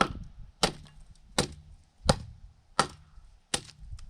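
Hatchet chopping into a dry log: six sharp strikes at a steady pace, about one every three quarters of a second.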